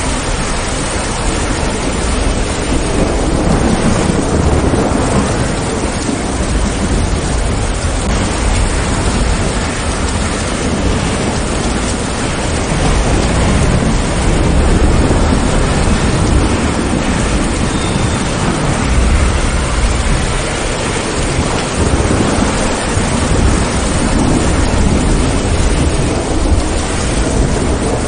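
Steady heavy rain hissing down, with low thunder rolling underneath in waves that swell and fade every few seconds.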